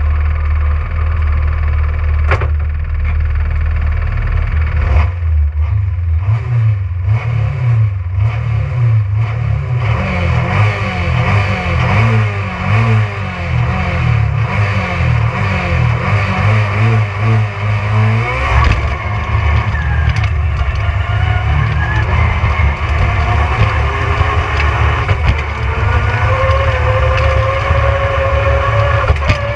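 Rally car engine revving hard at speed on a stage, its pitch climbing and dropping again and again with gear changes, with a sharp knock about two seconds in.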